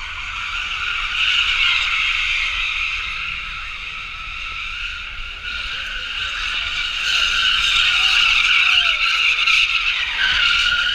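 Car tyres squealing continuously as a car spins donuts on asphalt. The screech swells about a second in and again from about seven seconds.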